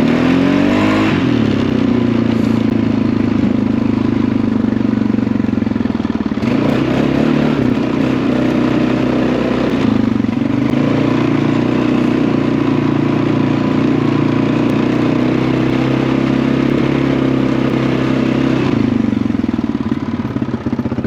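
Small off-road vehicle engine running steadily under way, with throttle changes a little after the start and again about six and ten seconds in, easing off near the end.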